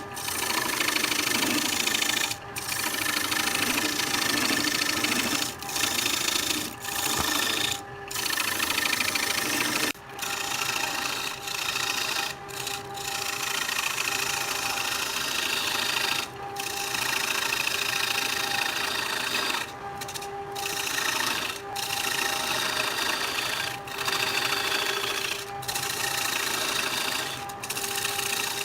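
Wood lathe running with a tool working the spinning wood: a loud, even cutting noise over a steady motor hum, broken by brief gaps every second or two as the tool lifts off.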